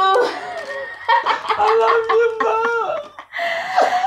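A man and a woman laughing together in broken bursts of giggles and chuckles, just after a long shouted note cuts off at the start.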